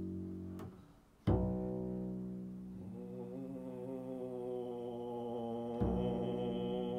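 Double bass bowed in long low held notes: one note dies away, and after a short gap a new note starts sharply and is held, with another change of note near the end. From about three seconds in a man's voice chants a long held "Oh" over the bass.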